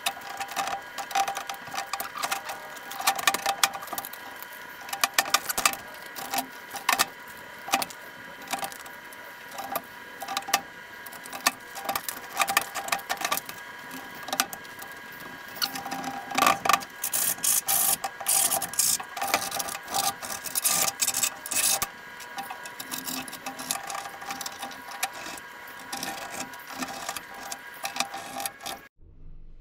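Sped-up time-lapse sound of grip tape being peeled and pressed onto a scooter deck: a fast, busy chatter of clicks and rustles over a steady high whine. It cuts off suddenly near the end.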